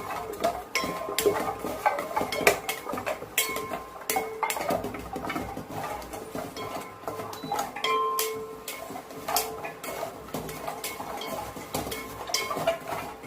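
A metal utensil clinking and scraping in a metal pan as dry spices are stirred: quick, irregular knocks with a faint metallic ring.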